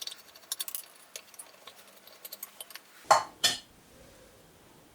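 Small metallic clicks and clinks of a hand tool and loose screws as the two screws holding the fine-adjust cover on an X2 mini mill are taken out, followed by two heavier knocks about three seconds in.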